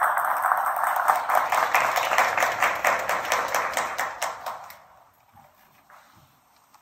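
Applause, which fades out about five seconds in.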